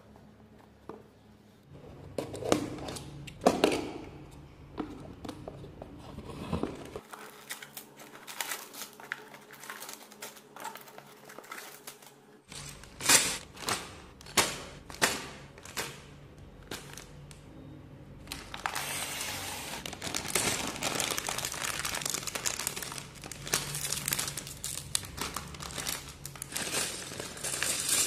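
Plastic parts bags from a brick-building set crinkling as they are handled and torn open, with loose plastic bricks clicking inside. Scattered sharp crackles come first, then from about two-thirds of the way in a steady, louder crinkling.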